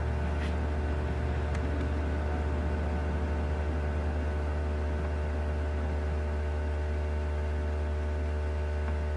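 Steady low electrical hum with a faint hiss, the background noise of the recording, with two faint clicks in the first two seconds.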